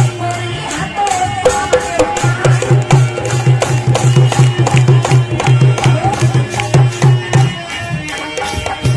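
Live Alha folk music: a hand drum plays a fast, steady beat from about two seconds in, with a melody line above it. The drumming stops shortly before the end.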